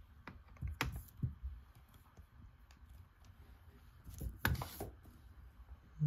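Handling noise from the recording phone being moved: a few light clicks and knocks about a second in, then a louder scrape and knock around four and a half seconds in.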